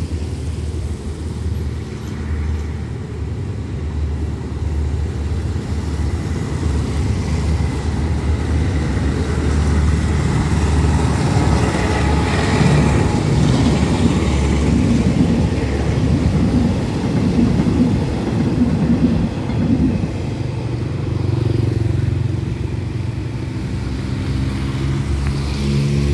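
Passenger train hauled by an SRT Alsthom diesel locomotive running past: a steady low rumble with the rolling clatter of the coaches' wheels on the rails, loudest in the middle. Toward the end a steady road-vehicle engine hum takes over.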